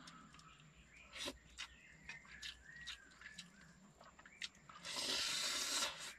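Someone eating a meal: light clicks of a spoon or fork against a bowl, then a breathy hiss lasting about a second, near the end. Faint bird chirps can be heard behind it.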